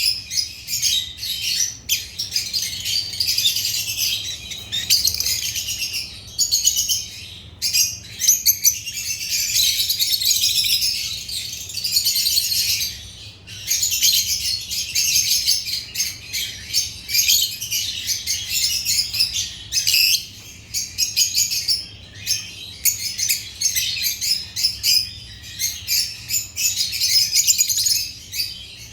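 Lovebirds chirping continuously in rapid, overlapping high chatter.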